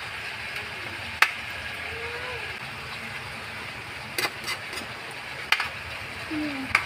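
Chicken pieces frying gently over low heat with a steady soft sizzle, while a spatula stirs them, giving a handful of sharp knocks and scrapes against the pan.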